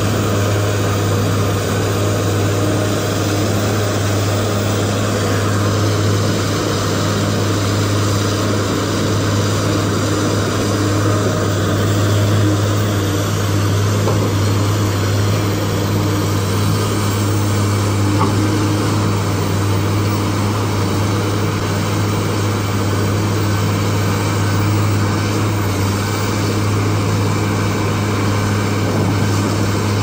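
Heavy diesel engines of large hydraulic excavators loading dump trucks, running with a steady low drone that holds an even pitch and level throughout.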